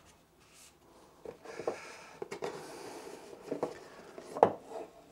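Hands handling a cardboard gift box and its foam insert: soft rubbing and a few light knocks, the loudest about four and a half seconds in.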